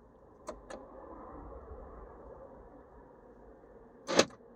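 2013 Chevy Malibu answering the lock button of a newly programmed remote key fob: two quick clicks of the door locks about half a second in, then a short, loud, pitched chirp about four seconds in.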